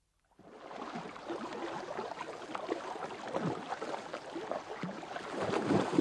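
Water splashing and gurgling in a dense, uneven crackle that fades in about half a second in and grows louder toward the end.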